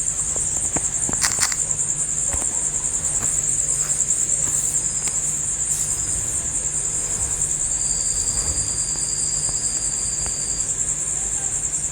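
Insects trilling steadily at a high pitch, with a steady low hum underneath and a few faint clicks.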